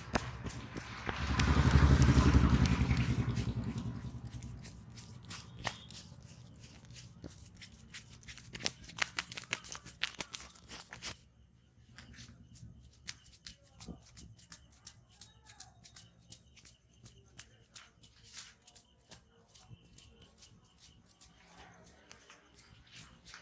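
Hands slapping and tapping in a massage: a dense flurry of very quick strikes about a second in, fading by about four seconds, then scattered single taps and pats.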